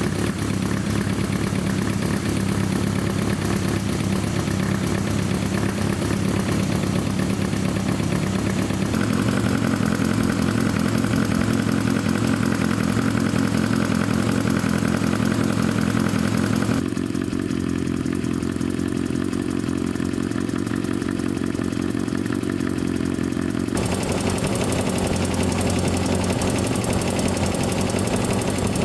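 Yamaha XJR400's air-cooled inline-four engine running at a steady idle, its sound changing abruptly three times as separate takes follow one another.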